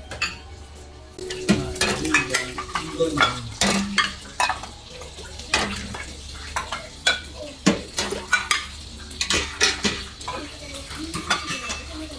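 Repeated, irregular clinks and knocks of a metal ladle against small single-serving katsudon pans as broth is ladled in, over a steady low hum.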